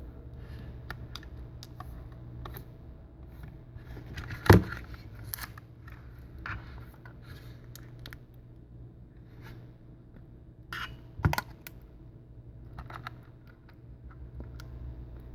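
Small clicks and taps of an iPad being handled and touched on a workbench, with two louder knocks, one about four and a half seconds in and one near eleven seconds, over a low steady hum.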